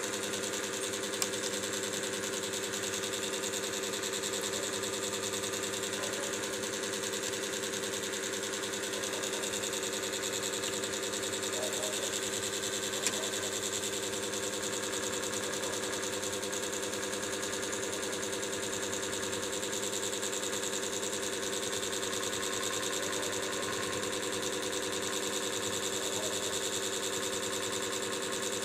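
A steady mechanical hum with several fixed tones, unchanging throughout, with two faint clicks, about a second in and near the middle.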